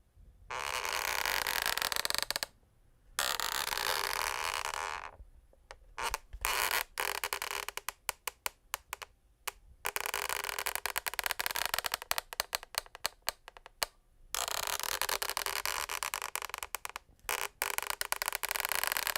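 Scraping and rubbing on a wooden parquet floor in long strokes, with a stretch of rapid crackling clicks about six to ten seconds in.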